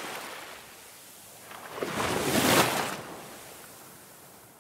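Ocean surf: a wave swells and breaks about two seconds in, then washes away.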